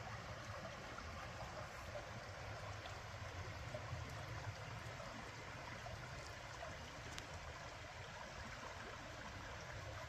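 Shallow creek running over rocks and flat stones: a steady, even rush of water.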